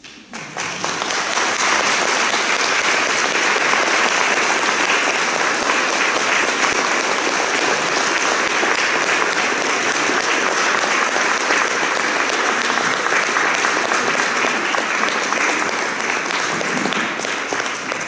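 An audience applauding, starting suddenly about half a second in and keeping up steadily throughout.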